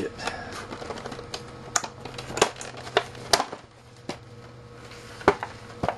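Stiff clear plastic packaging being handled and pulled apart: a scatter of sharp clicks and crackles with about six louder snaps, and a quieter stretch about two thirds of the way through.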